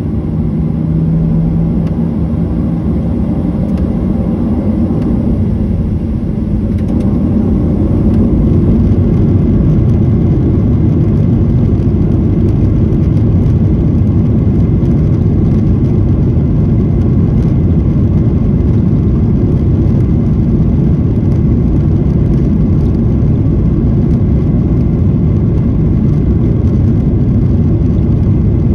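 Boeing 737-800's CFM56-7B jet engines running at low taxi power, heard inside the cabin over the wing: a steady low rumble and whir that grows a little louder about eight seconds in and then holds.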